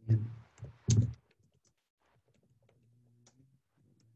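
Computer keyboard typing: faint, scattered key clicks. Two short, much louder low sounds come in the first second.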